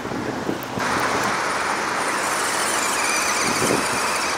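Steady rushing noise with a faint high whine from a radio-controlled model in motion, coming in about a second in.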